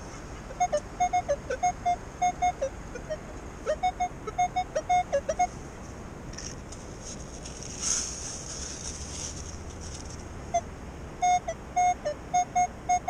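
Minelab Equinox 600 metal detector beeping in runs of short, even-pitched beeps as the coil passes over a buried metal target. About eight seconds in there is a short rush of noise as the sand scoop digs.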